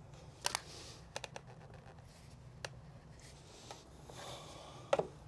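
A few sharp knocks and clicks of PVC drain pipe and fittings being handled and fitted together, with a soft rustle between them; the loudest knock comes near the end.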